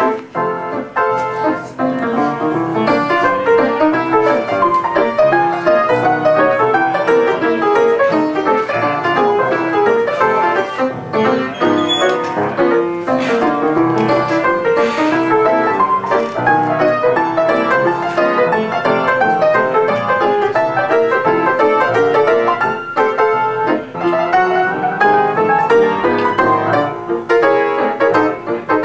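Upright piano playing ragtime, a continuous stream of quick notes.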